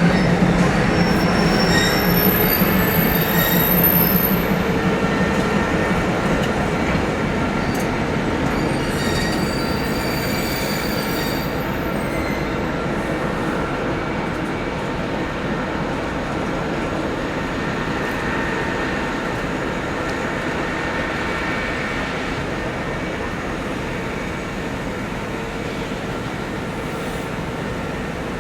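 Train hauled by an S200 diesel locomotive rolling slowly, the engine rumbling steadily and the wheels squealing in thin high tones, most in the first half. The sound fades slowly as the train moves off.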